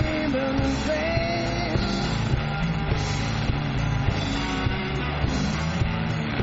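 Live blues-rock band playing: electric guitar over bass, with a steady drum beat.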